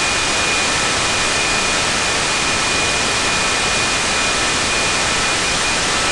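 Steady loud FM receiver hiss from a software radio demodulating wide FM on 70.76 MHz, with a faint steady high whistle in the noise and no station programme audible.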